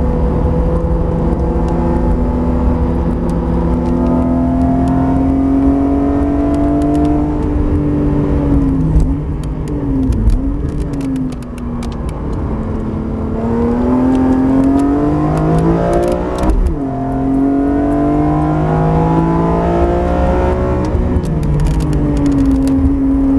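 BMW E46 M3 CSL's straight-six engine heard from inside the cabin under hard track driving: steady at high revs, then falling with quick blips as it brakes and shifts down for a slow corner about nine seconds in. It then climbs through the gears, with upshifts about sixteen and twenty-one seconds in, and settles at speed.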